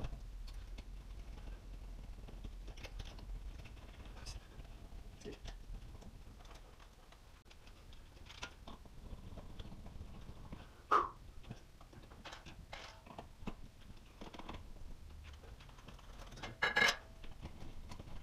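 Small clicks and taps of metal chandelier hardware being handled at the ceiling as the downrod and canopy are fitted, with one sharper click about eleven seconds in and a louder burst of clicking near the end.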